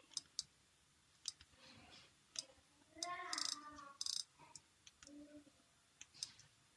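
Small sharp clicks and taps, scattered irregularly, from tools and small parts being handled during an iPod nano 3rd-generation battery replacement. A faint voice is heard briefly in the middle.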